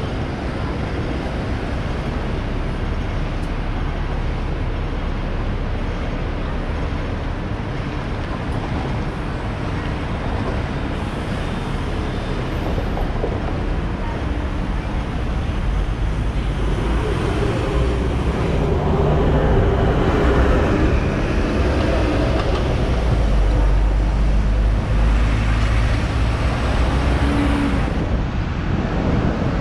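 Hong Kong double-decker tram running on street rails amid city traffic: a steady mix of road noise and the tram's own rumble. The low rumble of motor and wheels grows louder about halfway through as the tram gathers speed.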